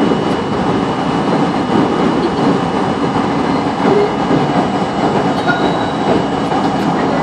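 New York City subway J train running on elevated track, heard from on board: a steady rumble of steel wheels on the rails with clatter as it crosses the switches.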